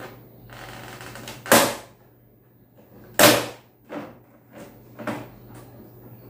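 Plastic clips of a Dell Inspiron 3280 all-in-one's back cover snapping loose as the cover is pulled up: a scraping rustle, then two loud sharp snaps about a second and a half apart, followed by several smaller clicks.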